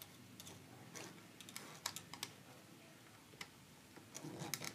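Faint, irregular small clicks and ticks of a screwdriver working the terminal screw of a plastic light switch, fastening a wire, with a few quick clicks bunched near the end.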